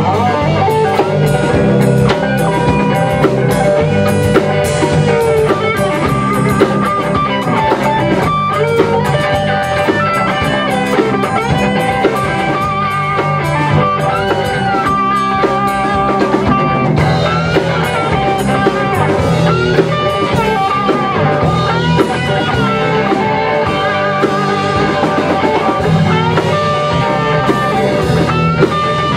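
Rock band playing an instrumental break: a lead electric guitar solo with bent notes over drum kit, bass and rhythm guitar.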